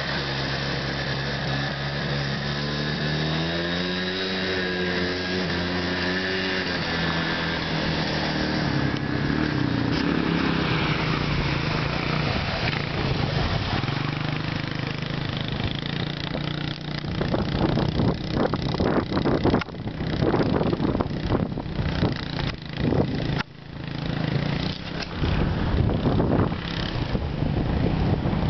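ATV engines running and revving through mud, the pitch rising and falling in the first third. Over the second half, loud irregular knocks and rumble cover the engine.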